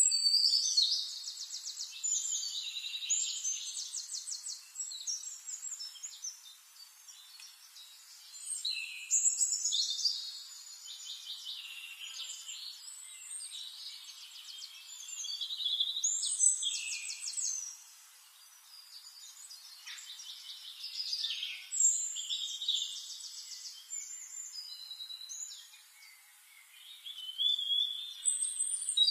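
Songbird song: phrases of rapid, high trills and chirps a few seconds long, repeating about every six seconds with short quiet gaps between.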